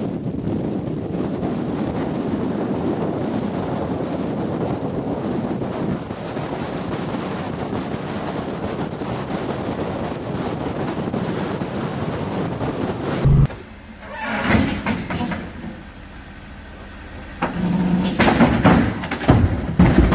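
Strong wind buffeting the microphone as a steady, even rushing. About 13 seconds in it breaks off with a sharp knock, followed by irregular bursts of clattering noise.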